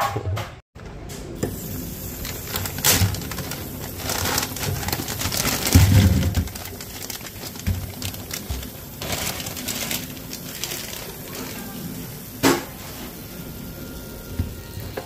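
Kitchen prep handling sounds: scattered knocks and clicks of food and utensils, with a dull thump about six seconds in and a sharp click later on.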